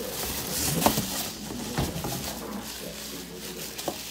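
Plastic wrapping rustling and crinkling as a boxed pressure cooker is pulled out of its cardboard box, with a few light knocks.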